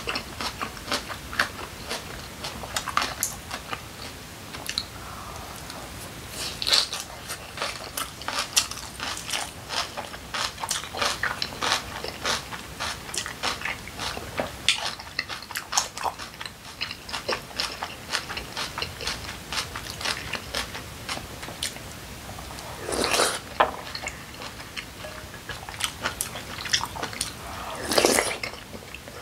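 Close-miked chewing of yeolmu kimchi bibimbap: many small crisp crunches and wet mouth clicks, with two louder slurps from a spoon near the end.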